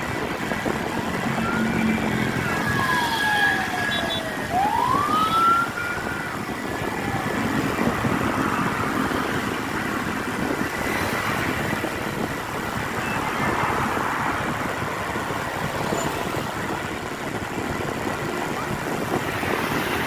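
A siren wails, its pitch sliding down and then back up a couple of seconds in, over steady road-traffic noise.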